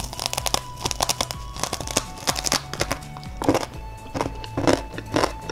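Crunchy biting and chewing of dry, fried mie lidi flour sticks: a quick run of many sharp crunches, over background music.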